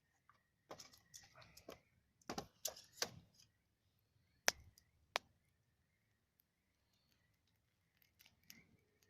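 Wood fire crackling, with irregular clusters of small crackles and a few sharp single pops, the loudest about four and a half seconds in.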